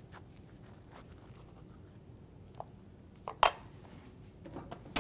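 Quiet kitchen handling at a cutting board: a few soft clicks and one sharp clack of a utensil about three and a half seconds in, with small ticks near the end.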